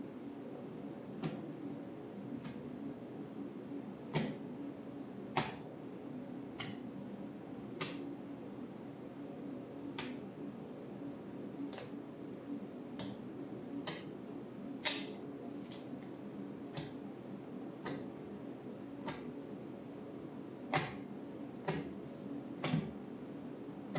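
Scattered sharp clicks and taps, one every second or so at irregular spacing, the loudest about fifteen seconds in, over a steady low hum and a faint high whine.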